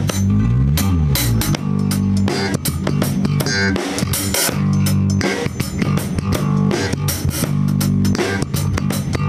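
Electric bass guitar playing a repeated low riff, with a slide in pitch near the start, together with a drum kit keeping time.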